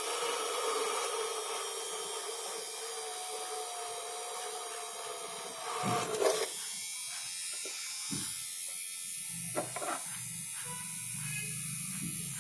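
Small DC motor of a homemade mini drill, an RS-555, running with a steady high whine. About six seconds in there is a brief disturbance, and a lower hum joins in the last few seconds.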